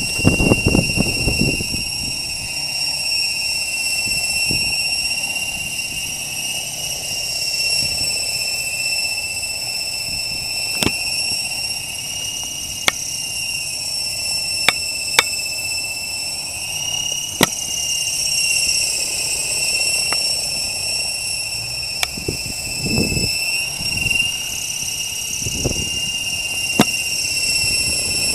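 HK-600GT electric RC helicopter hovering and flying low: a steady high-pitched whine from its brushless motor and main gear, with small shifts in pitch as the rotor loads and unloads. A few sharp clicks and some low rushing gusts come through now and then.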